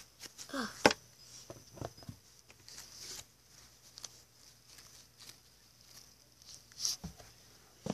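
Light taps, clicks and rustles of a plastic toy horse and its toy saddle being handled against a cardboard stable, with a short vocal sound from the child under a second in.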